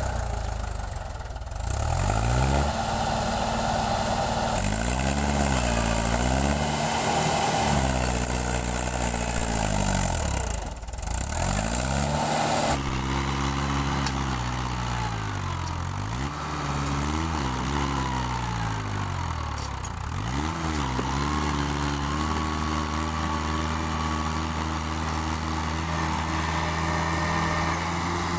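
Diesel tractor engine revving up and down over and over, its pitch rising and falling every couple of seconds, with a short drop in level about eleven seconds in.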